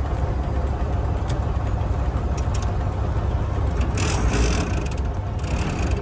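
An engine running steadily with a low rumble, with two short bursts of hiss about four and five and a half seconds in.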